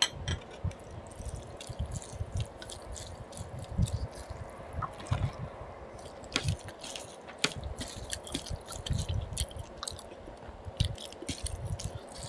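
Close-miked eating by hand: wet squishing of rice mixed with curry gravy, then chewing with many irregular short, wet clicks of lips and mouth.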